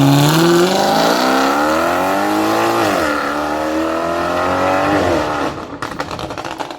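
Car engine accelerating hard: its pitch climbs, drops sharply about three seconds in at an upshift, climbs again in the next gear, then fades out about five and a half seconds in.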